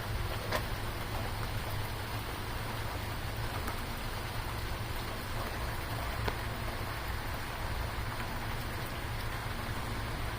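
Steady rain falling, a continuous patter with a few sharper single drop ticks here and there.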